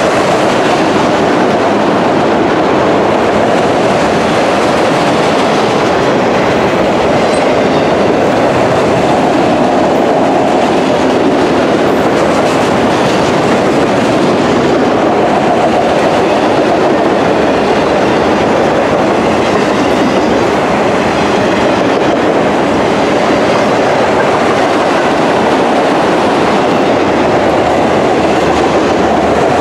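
Enclosed autorack freight cars rolling past at close range, their steel wheels running over the rails in a steady, loud, continuous noise.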